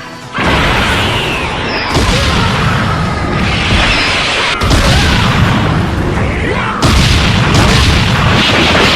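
Dragon Ball Z-style anime fight sound effects: a dense, continuous run of booming impacts and blasts, with a new loud hit breaking in about every two seconds.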